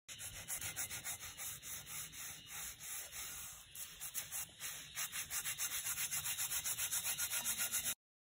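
Wire brush scrubbing the rusty surface of a cast-iron Dutch oven lid in quick back-and-forth strokes, speeding up to about four strokes a second in the second half and stopping abruptly near the end. The scrubbing strips rust off the iron before it is re-seasoned.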